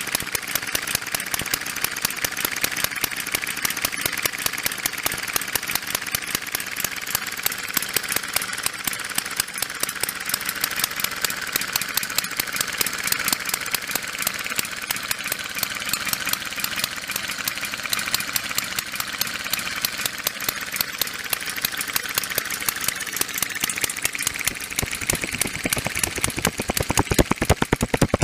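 Small home-built inline-twin four-stroke model engine, its valves mounted below the cylinders, running with a fast, even beat. Near the end the beats become louder and slower.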